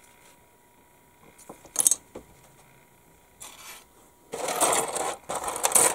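Hard plastic model-kit parts and sprue clattering and scraping as they are handled and set down on a cutting mat: one sharp click a little under two seconds in, then louder rattling and scraping for the last second and a half.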